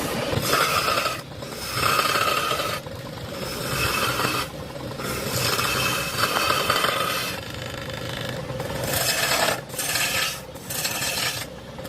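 Repeated scraping strokes against a hard surface, about one every second and a half.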